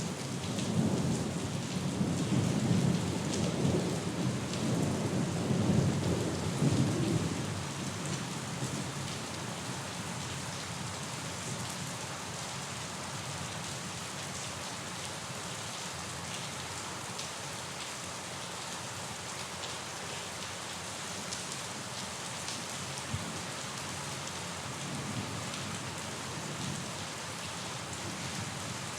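Steady rain with a low, rolling rumble of thunder over the first several seconds that dies away, leaving the even hiss of the rain.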